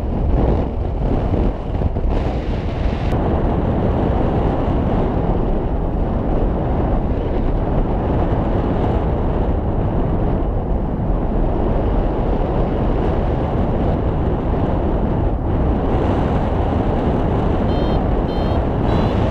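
Steady rush of airflow buffeting the camera microphone of a paraglider in flight. Near the end a flight variometer starts beeping in quick short pips, the sign that the glider is climbing in lift.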